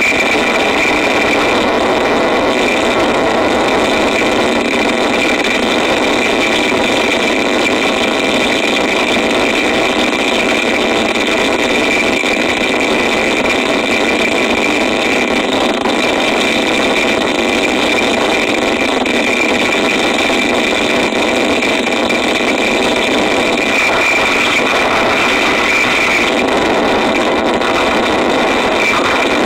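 Harsh noise: a loud, unbroken wall of distorted, churning noise with a shrill band riding high above a dense midrange roar, barely changing throughout.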